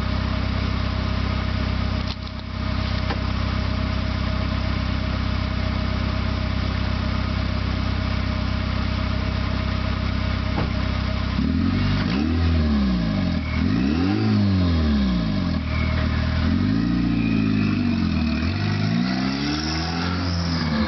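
Turbocharged Honda Fit engine idling steadily with the catalytic converter removed, exhaust spitting straight out of the downpipe. About eleven seconds in it is revved, about four times, each rev rising and falling in pitch.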